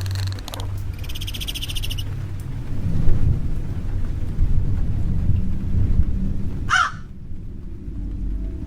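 A heavy low rumble swells from about two and a half seconds in and drops away near seven seconds, cut by a short harsh animal cry, like a caw or screech. At the start, a rapid high chattering trill lasts about a second and a half.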